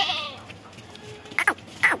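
A goat bleats with one wavering call at the start, followed about halfway through by two short sharp knocks close together.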